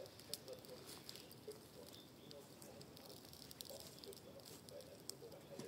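Wood campfire crackling faintly, with scattered small pops and ticks.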